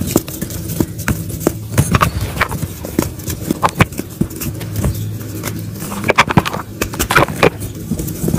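Dried mud chunks crunching and cracking as hands squeeze and crumble them, with many irregular sharp crackles several times a second.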